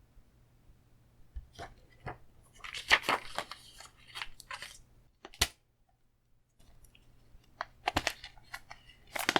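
Blu-ray case and its packaging being handled: sharp plastic clicks and taps with a stretch of crinkly rustling, and one sharp snap about halfway through.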